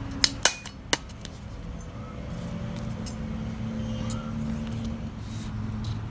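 Chrome handheld hole punch snapping shut through a paper card: three sharp metallic clicks within the first second. After that come a few faint ticks of the card being handled, over a steady low hum.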